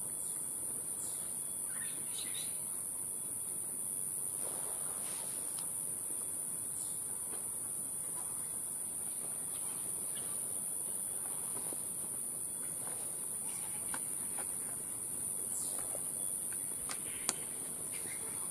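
Steady, high-pitched drone of insects calling in the pine forest, with a few faint short calls and a sharp click near the end.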